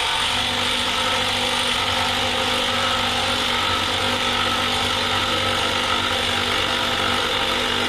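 Impact gun running continuously with a steady rattle and whine, cutting in abruptly and holding at one speed, driving the screw of a motorcycle lift jack.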